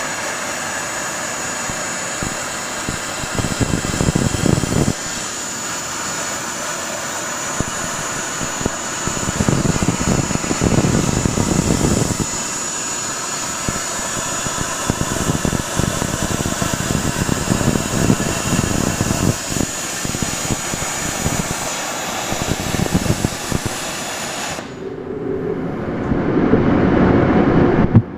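CNC plasma table with a Hypertherm XPR300 torch cutting steel plate: a steady loud hiss with a thin high whine, with louder rumbling stretches at times. Near the end the hiss and whine stop and a louder rumble takes over.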